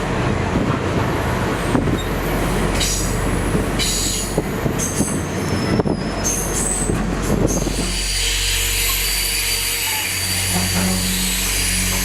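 Train running on the rails, wheels rumbling with thin high-pitched wheel squeal that wavers in pitch; about eight seconds in the rumble gives way to a steadier hum.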